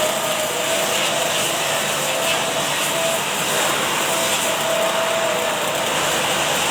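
Steady hissing machine noise of an automatic welding line running, with a faint mid-pitched tone that comes and goes every second or so.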